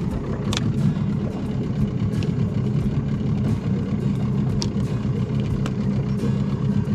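Boat's outboard motor idling steadily, with a few sharp clicks and knocks as the crab pot is handled on deck.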